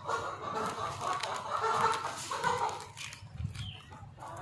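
Chickens clucking in a run of short, irregular calls that fade in the last second or so.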